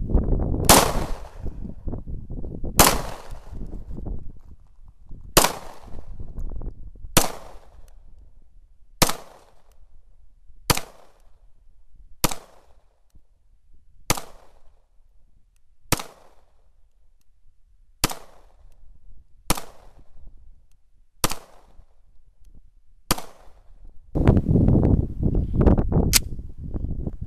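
Pistol fired in slow, single shots at steel targets, about fourteen sharp shots roughly two seconds apart, each trailing off briefly. A low rumbling noise runs at the start and again from near the end.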